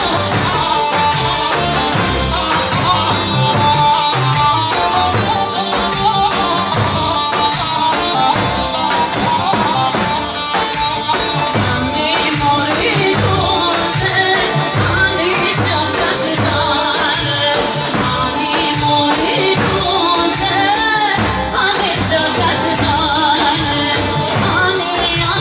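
Live Albanian folk dance music: a band with keyboard and singing, over a steady deep beat from a lodra, the large double-headed Albanian bass drum.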